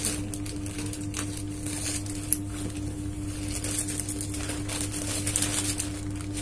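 Plastic courier mailer bag crinkling and rustling as it is handled and opened, with one sharp click a little over two seconds in, over a steady low electrical hum.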